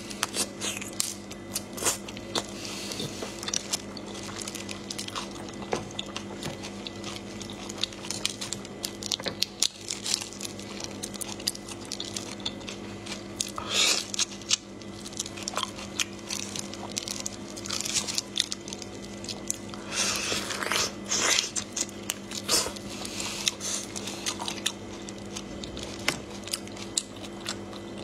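Close mouth sounds of eating whole raw marinated shrimp: irregular crunching of shells and wet chewing, with sharp crackles now and then.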